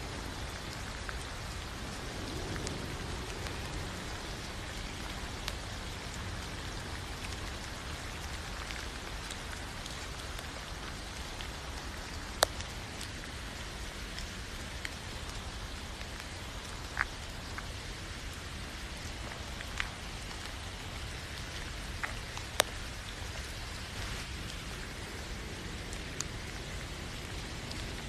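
Steady rain falling, an even hiss of drops, with several single louder drops ticking sharply now and then, the loudest about halfway through and again about four-fifths of the way in.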